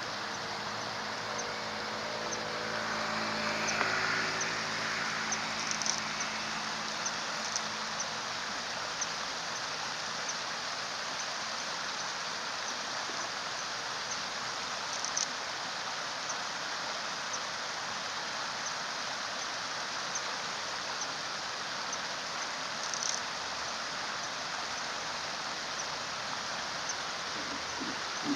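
Steady rushing of flowing water, with a vehicle's engine hum swelling and fading as it passes in the first several seconds.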